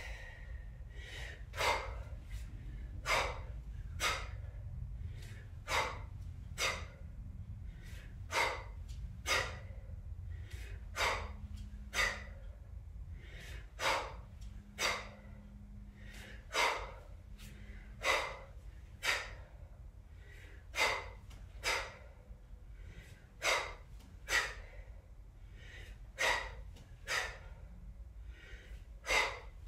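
A woman's sharp, forceful exhalations in a steady rhythm, about one a second and often in pairs, breathing hard under the effort of repeated one-arm kettlebell snatches.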